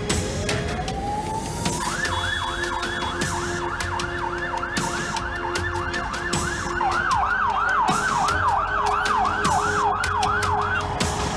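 Emergency vehicle siren winding up in one rising wail, then switching to a fast yelp of about three sweeps a second, which stops shortly before the end. Scattered sharp clicks sound underneath.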